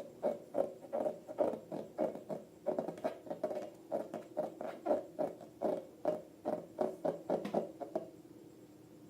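Soft, wet squelches of slime being squeezed and kneaded by hand, about two or three a second, stopping about eight seconds in.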